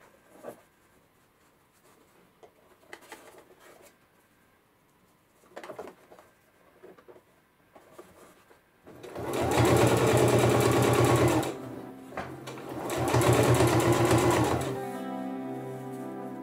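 Sewing machine stitching denim strips in two runs of about two seconds each, after a few quiet rustles and clicks of fabric handling. Guitar music starts near the end.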